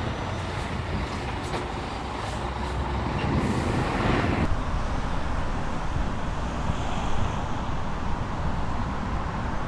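Chinook twin-rotor helicopter running, a steady low rumble, with a burst of hiss from about three and a half seconds in that stops sharply about a second later.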